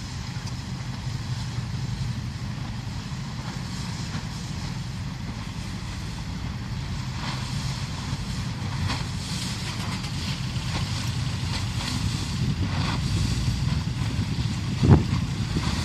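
Double-ended open-type car ferry's diesel engines giving a steady low rumble that grows louder as the vessel closes in, with wind noise on the microphone. A brief thump near the end.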